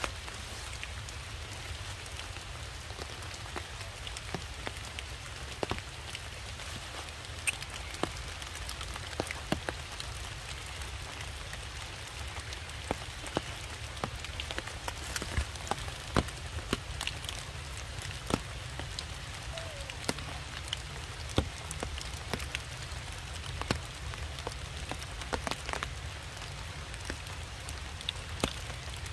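Steady hiss of light rain falling and dripping on wet ground, broken by irregular sharp ticks.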